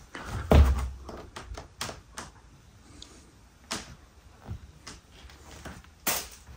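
Irregular clicks and knocks, with a heavier thump about half a second in.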